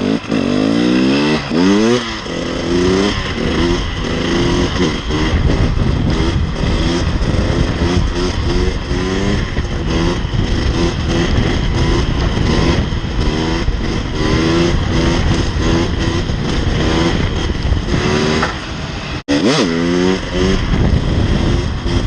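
KTM 300 EXC TPI's fuel-injected two-stroke single being ridden hard, its pitch rising again and again as the throttle is opened, with a brief sharp cut-out about nineteen seconds in.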